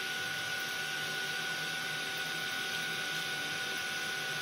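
Small cooling fans inside a Pelco PTZ dome camera housing whirring steadily, with a faint steady high whine over the hiss.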